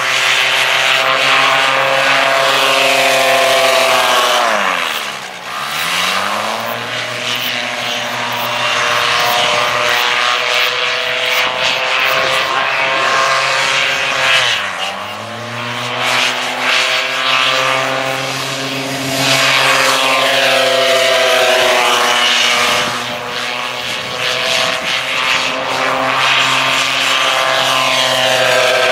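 Paramotor engine and propeller running at high power, a steady buzzing drone. It drops sharply in pitch and climbs back twice, about five and fifteen seconds in, as the throttle is eased off and opened again through the turns around the pylons.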